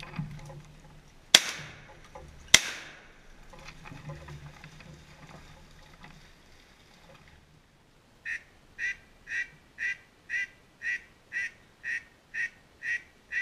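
Two shotgun shots about a second apart, then near the end a duck quacking in an even run of about eleven quacks, two a second.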